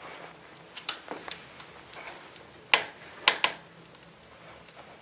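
A few sharp clicks and knocks at irregular intervals in a small room, the loudest three close together about three seconds in.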